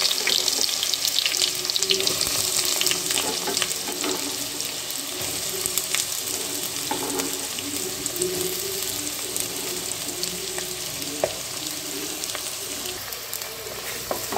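Sliced onions sizzling in hot oil, loud at first and gradually easing as the pan settles. A few light scrapes of stirring come near the end.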